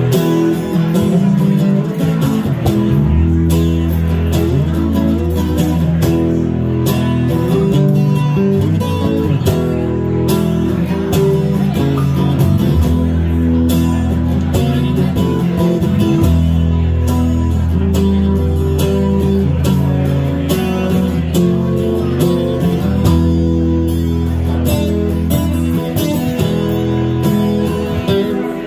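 Live acoustic guitar strumming over an electric bass guitar playing sustained low notes that change every few seconds.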